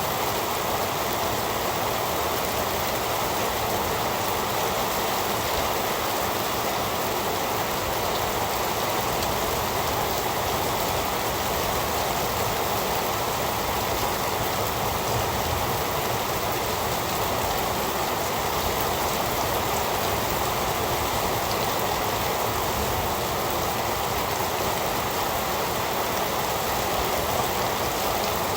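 Heavy rain falling steadily, an even hiss with no breaks or claps of thunder.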